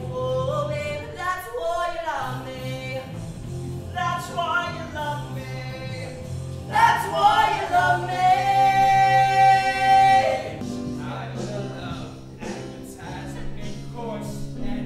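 Musical-theatre number sung live with instrumental accompaniment. Past the middle comes a long, loud held note that cuts off sharply. Quieter music with a light, steady beat follows.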